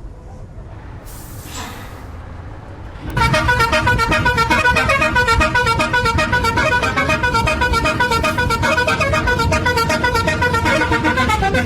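Bus basuri (multi-tone "telolet") horn starting about three seconds in and playing a fast run of changing notes over one held tone.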